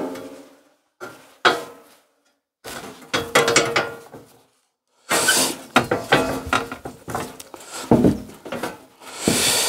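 Metal parts being handled and fitted onto a bare steel mini tractor chassis: several bursts of clinking, clanking and scraping metal, with short quiet gaps between them.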